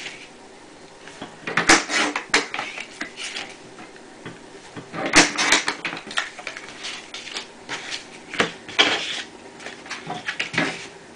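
Fiskars sliding paper trimmer cutting sheets of watercolor paper: the blade carriage scrapes along its rail in several short cutting strokes, with paper rustling as the strips are shifted between cuts.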